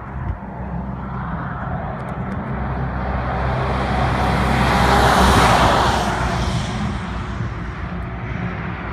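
A road vehicle passing by: its noise swells, is loudest about five seconds in, then fades away, over a steady low hum.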